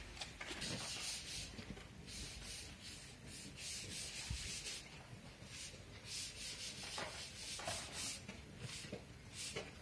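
A hand trowel scraping and smoothing a cement skim coat (aci) on masonry, in a string of uneven scraping strokes, roughly one or two a second.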